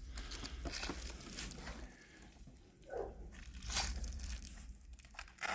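Faint rustling and crinkling handling noise with a few soft clicks.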